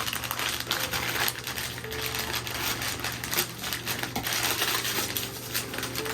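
Wrapping and packaging rustling and crinkling as a Christmas gift is unwrapped and dug out of its covering, with many small clicks and crackles.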